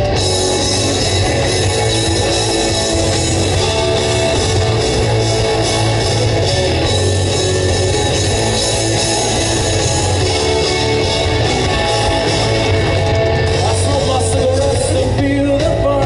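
Live rock band playing loud through a festival PA: electric guitars, bass guitar and drum kit, with singing.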